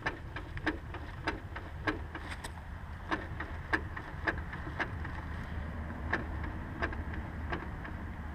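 Honda S2000 propeller shaft clicking as the rear wheel is turned by hand, a sharp click about every two-thirds of a second, over a low steady hum. The clicking comes from play in the shaft, which the owner believes is worn out and needs replacing.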